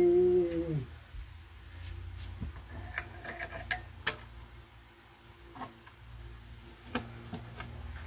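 Room tone: a steady low hum with a few faint, scattered clicks, after a man's drawn-out spoken word at the very start.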